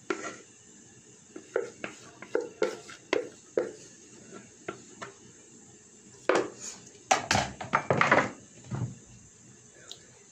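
Spatula scraping and tapping cake batter out of a plastic mixing bowl into a glass baking dish: a string of light knocks, then louder scraping and knocking about six to nine seconds in.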